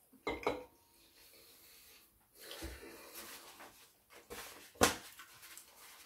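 Kitchen paper towel roll being handled: a couple of quick knocks at the start, then paper rustling as a sheet is unrolled, and one sharp rip near the end as the sheet is torn off.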